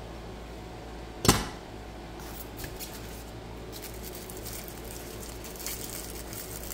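Parts and packaging of a 1/50 scale model crane being handled: one sharp knock about a second in, then scattered crinkling and small clicks as pieces are unwrapped.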